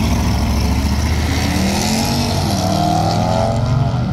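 Two pickup trucks launching side by side off the line of a drag strip, their engines revving hard and accelerating away with rising pitch.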